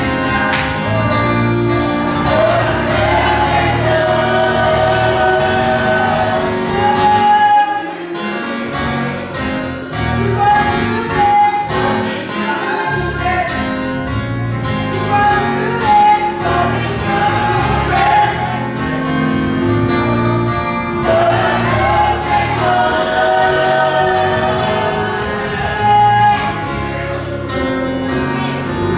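Gospel choir singing a hymn with instrumental accompaniment.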